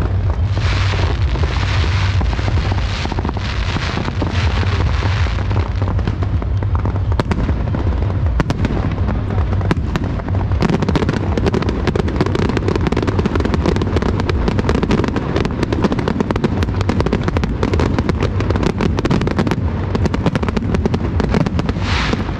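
Fireworks display: a continuous barrage of rapid pops and bangs, with hissing in the first few seconds and a denser run of crackling reports from about ten seconds in.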